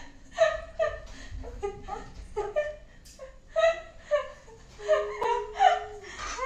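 A woman laughing in short, repeated bursts.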